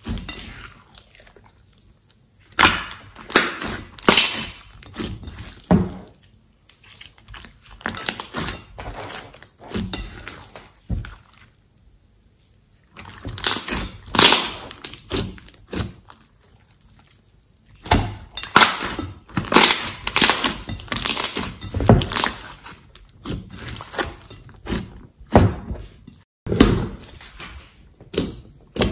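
Hands squishing and kneading thick glitter slime: irregular runs of sticky clicks, crackles and squelches, with a couple of short pauses.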